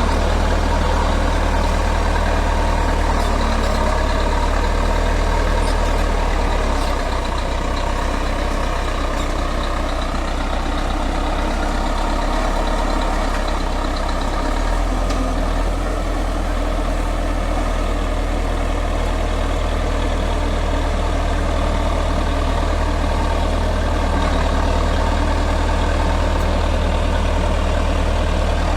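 Bulldozer's diesel engine running steadily with a deep, low drone. It eases slightly about seven seconds in and shifts in tone again about halfway through.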